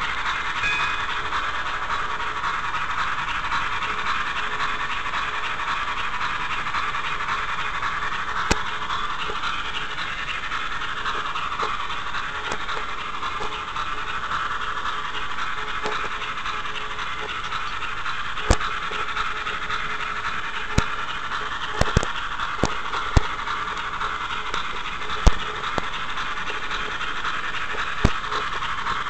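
Model train running along its track, heard from a camera riding on the layout: a steady whirring hiss of wheels and motor, with a few sharp clicks in the second half.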